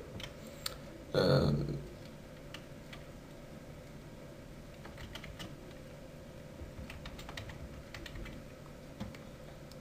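Typing on a computer keyboard: scattered light keystrokes as a line of text is entered. A short vocal sound about a second in.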